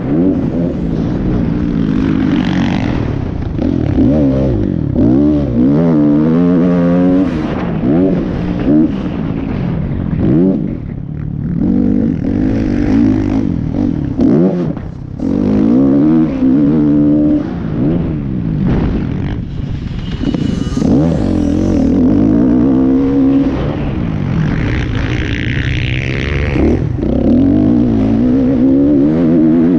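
Dirt bike engine at racing speed, revving up and dropping off again and again as the throttle opens and closes, the pitch climbing through each gear and falling away in between.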